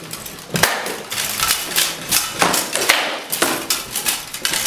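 Rattan swords striking shields, helms and plate armour in a bout of armoured combat: an irregular run of sharp clacks and thuds that starts about half a second in.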